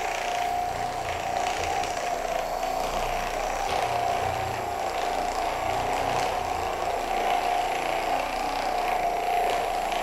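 Handheld percussion massage gun running against a person's back: a steady motor whine that holds one pitch throughout.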